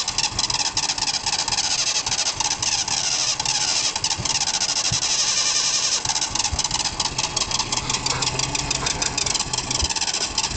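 Nissan Vanette engine being cranked over on its starter motor in a long, struggling start, a rapid, even chugging.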